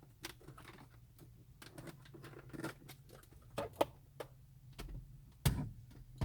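Irregular light plastic clicks and taps of a truck's gauge cluster and dash trim being handled and fitted, with one louder knock about five and a half seconds in, over a steady low hum.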